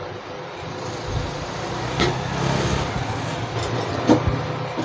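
Steady rumbling background noise with no clear pitch, swelling about a second in. Two sharp clicks cut through it, one about two seconds in and one near the end.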